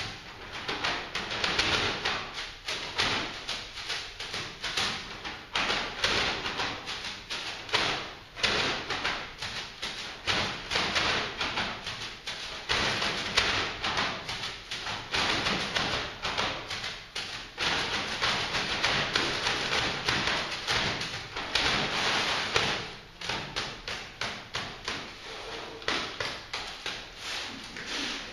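Brown paper bags played as percussion by four players: a dense crackling rustle of crumpled and shaken paper, rising and falling in rhythmic swells. It thins to sparser, separate strokes in the last few seconds.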